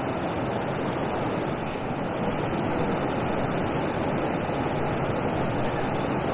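Steady rushing of water pouring over a river weir, mixed with wind on the microphone.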